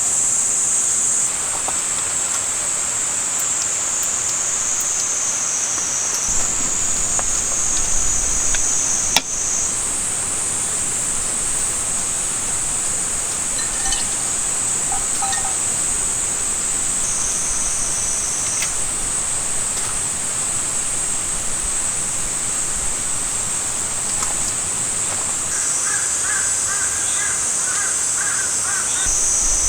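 Cicadas buzzing in a steady, high-pitched chorus that swells and drops in steps. A bird calls a few times near the end.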